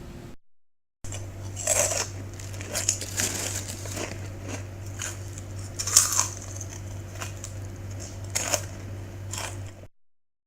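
Irregular crinkling and crackling noise, a home-made sound effect, with louder crackles about 2, 6 and 8.5 seconds in, over a low steady hum; it starts about a second in and stops just before the end.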